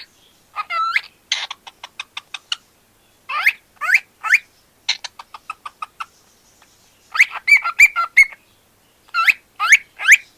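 Pet cockatiel chirping in quick clusters of short calls, several sweeping up in pitch, with a pause of a couple of seconds around the middle.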